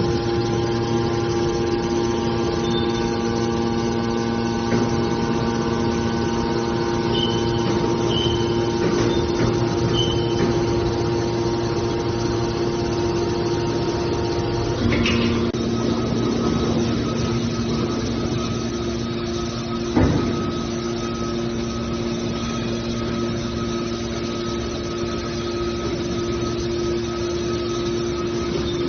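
Hydraulic scrap-metal baler running: a steady machine hum with fixed tones, which shifts about halfway through, and a single sharp clank about two-thirds of the way in.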